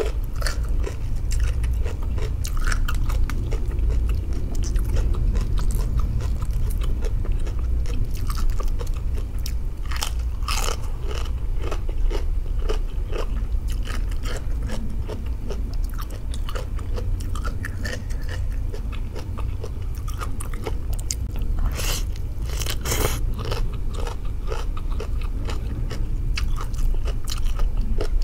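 Chewing and crunching of raw cabbage leaves eaten with rice noodles in fermented fish sauce, a steady run of crisp bites and wet mouth sounds. A few louder, sharper crunches come about ten seconds in and again around twenty-two seconds in.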